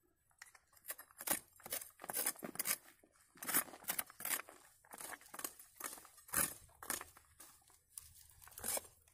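Curved machete chopping and scraping into dry earth and pine-needle litter, repeated sharp strokes roughly two or three a second starting about half a second in, while the soil is cleared from around a dug-up wild sweet potato root.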